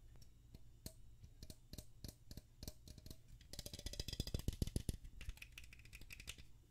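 Fingernails tapping and scratching on a black cylindrical container held close to a microphone: a run of quick, crisp taps that turns into a faster, louder flurry of tapping and scratching in the middle.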